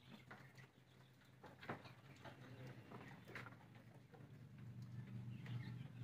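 Faint sounds of penned sheep moving about: scattered light taps and clicks over a low steady hum.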